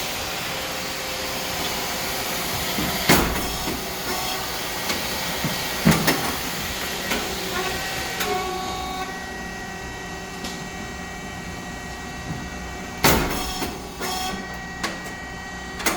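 Puffed rice cake machine (SYP9002) running through its cycle: a steady motor and hydraulic pump hum under a loud hiss that fades away about nine seconds in. Three sharp bangs, about three, six and thirteen seconds in, fit the heated moulds opening as the rice cakes puff out.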